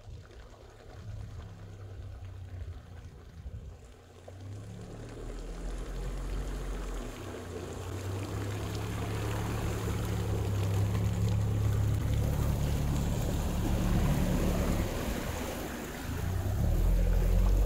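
Quad bike on oversized low-pressure tyres wading through a deep muddy puddle: the engine runs under load with its note changing a few times with the throttle, while the tyres churn and splash the water. It grows louder as the quad approaches and is loudest near the end as it passes close by.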